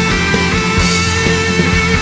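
Instrumental passage of a rock song: a full band playing sustained chords with a steady beat, without vocals.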